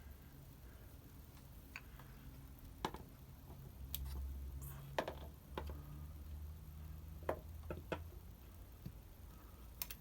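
Scattered light clicks and knocks, about eight in all, as the motorcycle's engine case cover and its parts are handled and offered up to the engine, over a low steady hum.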